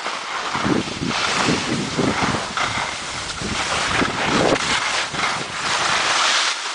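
Wind buffeting a camera microphone while skiing downhill, rumbling unevenly, with the hiss and scrape of skis sliding over snow.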